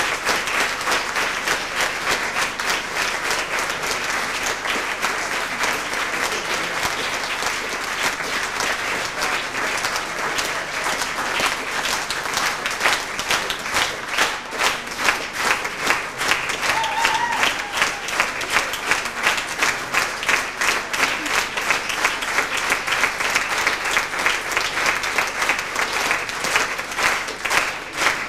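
Audience applauding the cast's bows. About halfway through, the clapping falls into a steady rhythm in unison.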